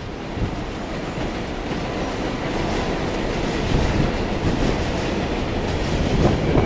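Kawasaki R188 subway cars of a 7 local train pulling into an elevated station, with a steady noise of wheels on the rails that slowly grows louder as the cars pass. A few clacks of wheels over rail joints come near the end.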